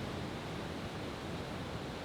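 Steady rushing outdoor background noise with no firework bursts or bangs in it.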